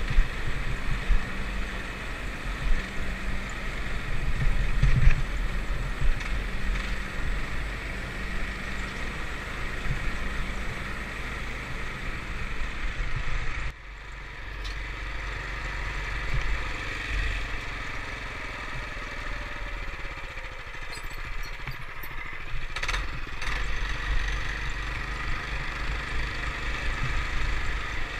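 Small off-road vehicle engine running steadily while riding. The sound drops out abruptly about fourteen seconds in, then carries on much the same.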